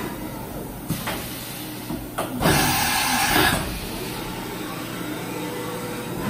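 Doosan DNM-400 CNC vertical machining center running through its axis travels with a steady machine hum. Two sharp clicks sound about a second apart, then a loud hiss about two and a half seconds in lasts a little over a second.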